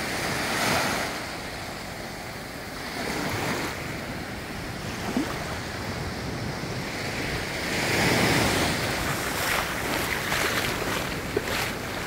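Small waves washing up onto a sand and rock beach, surging louder about a second in and again around eight seconds, with wind on the microphone.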